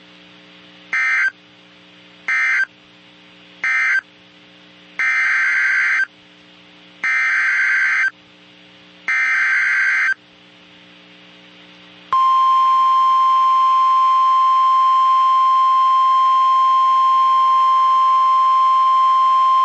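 NOAA Weather Radio Emergency Alert System (SAME) data bursts: three short bursts, the end-of-message code closing one warning, then three longer bursts of about a second each, the header for the next warning. About twelve seconds in, the steady 1050 Hz warning alert tone starts and holds. Faint radio hum sounds between the bursts.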